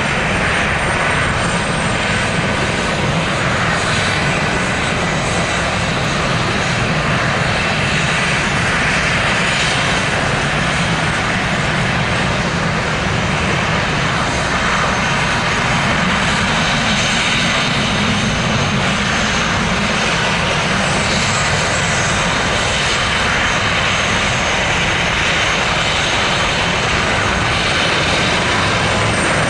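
Airbus H145 helicopter's twin turbine engines and rotors running steadily on the ground: a continuous turbine whine over the rotor's low churning noise.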